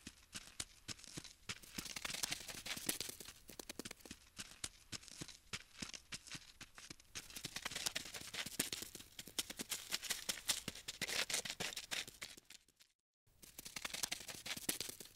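Dense, rapid dry clicking and scratching: an insect-scuttling sound effect. It swells and eases in loudness, drops out suddenly for about half a second near the end, then resumes.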